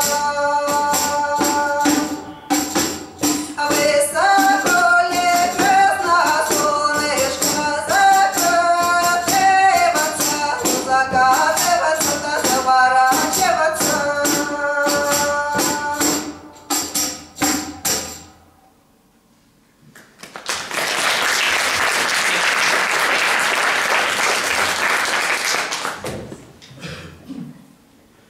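Women's singing over a fast, steady beat on a frame drum with jingles; the song stops about 18 seconds in. After a short pause the audience applauds for about five seconds.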